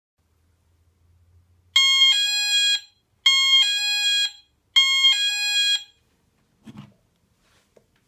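Wireless infrared driveway alarm receiver (1Byone QH-0251) sounding its electronic ding-dong chime three times, each a short high note then a longer lower note, about a second and a half apart: the alert that the sensor has picked up movement. A soft thump and a small click follow near the end.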